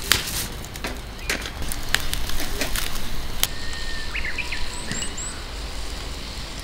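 Wood fire crackling in a fire pit, with a few sharp pops. A little over three seconds in, small birds take over, with a brief whistled note and a few short high chirps.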